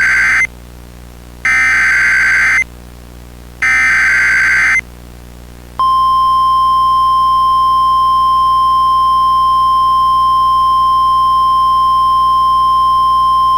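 Emergency Alert System SAME header: three harsh bursts of digital data tones, each about a second long with a second's pause between, the first already under way. A single steady NOAA Weather Radio attention tone (1050 Hz) then follows, held for about eight seconds.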